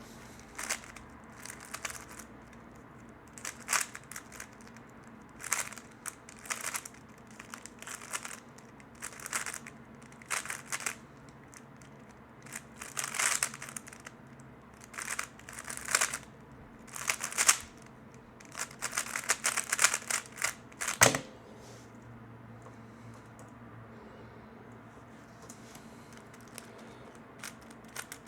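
3x3 speedcube being turned fast, its plastic layers clicking and rattling in quick bursts of turns with short pauses between. There is one sharp knock about two-thirds of the way through, then a few seconds of quiet before turning resumes near the end.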